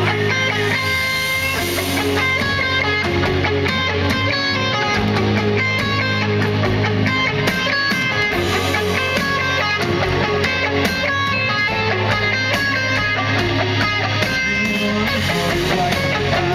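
Live rock band playing loud, steady, with electric guitars over drums.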